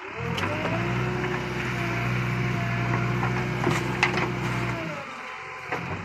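JCB 3DX backhoe loader's diesel engine running up under hydraulic load as the backhoe digs into wet mud, then easing off about five seconds in. A few sharp knocks, typical of the bucket striking and scraping through the clay, sound over it.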